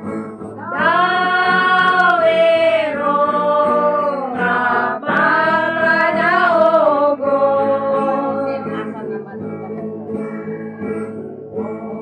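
People singing to an acoustic guitar. One voice close by holds long notes from about a second in and again around five seconds in.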